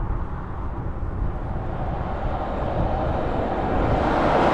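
Road traffic noise: an approaching motor vehicle's tyres on the road, growing steadily louder toward the end, over a low wind rumble on the microphone.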